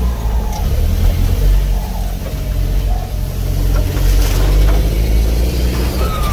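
Off-road 4x4's engine running steadily at low revs while driving over a dirt track, heard from inside the cabin. A short falling squeal is heard near the start and again near the end.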